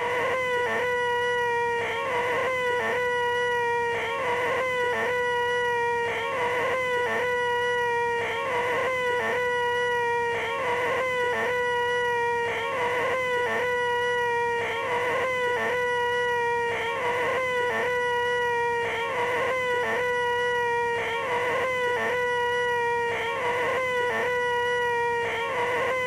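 A man's voice making the loud, nasal, held 'eeeh' known as 'the most annoying sound in the world', on one steady pitch. It repeats over and over as a loop, with short breaks less than a second apart.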